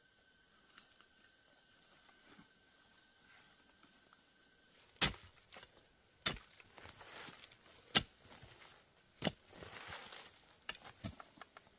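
A steady, high insect drone, joined in the second half by four sharp knocks about one and a half seconds apart and then a few lighter ticks. No chainsaw is running.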